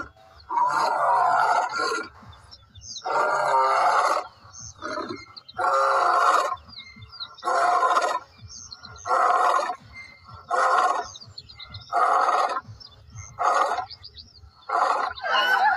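A male lion roaring in a bout: about ten loud calls roughly one every one and a half seconds, the first ones long and the later ones shorter and grunt-like.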